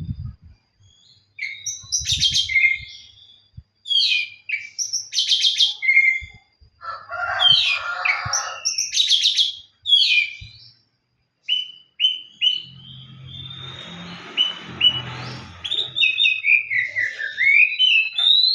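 Oriental magpie-robin (kacer) singing loudly in a string of varied whistled phrases, trills and pitch sweeps, with a harsher rasping stretch about seven seconds in. In the hobby this full, continuous singing marks a bird in challenging mood, calling out a rival. A low rumbling noise runs under the song from about twelve to sixteen seconds.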